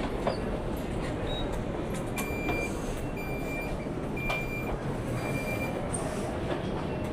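Steady rumble inside a train carriage, with four high electronic beeps about a second apart in the middle: the train's door warning beeper.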